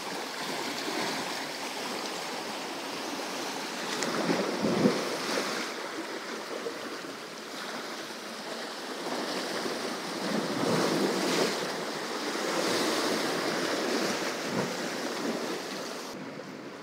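Sea surf washing against a rocky shore, swelling and easing with the waves, with wind on the microphone.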